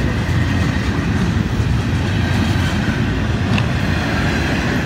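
Freight train cars rolling past close by: a steady, loud rumble of steel wheels on the rails, with a few sharp clicks.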